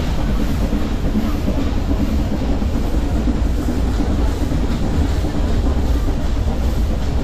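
Nilgiri Mountain Railway toy train running along the track, a steady rumble and rattle of the moving coach.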